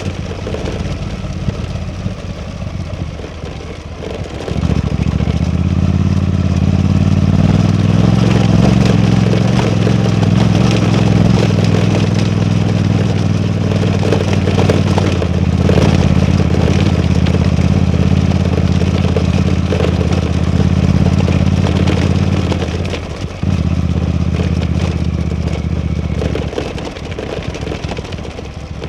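Suzuki V-Strom 800DE's parallel-twin engine running as the motorcycle is ridden. It is lighter for the first few seconds, pulls louder and steady from about five seconds in, dips briefly, then eases off near the end.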